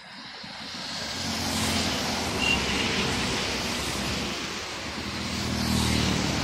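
Highway traffic passing close by: a heavy goods truck's engine and tyres grow loud about a second in, followed by cars and motorcycles. A second swell of engine and tyre noise comes near the end. A brief high tone sounds about two and a half seconds in.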